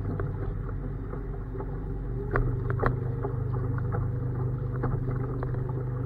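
A 2 hp Honda four-stroke outboard motor running steadily, pushing a small boat along, with a little more power from about two and a half seconds in.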